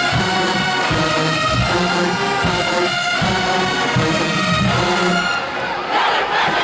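A college marching band's brass section blasts held chords over steady drum beats. About five and a half seconds in, the band cuts off and the crowd breaks into cheering and shouting.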